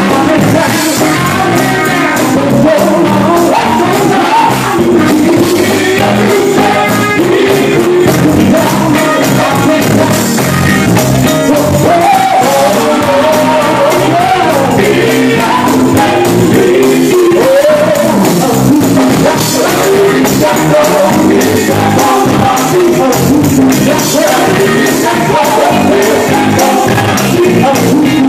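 A gospel vocal group singing live with electric guitar and drums, the voices moving over a steady beat.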